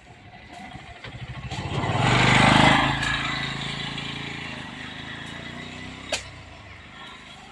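A motor vehicle's engine passing by: it grows louder, is loudest about two and a half seconds in, then slowly fades with a slightly falling pitch. A single sharp click comes about six seconds in.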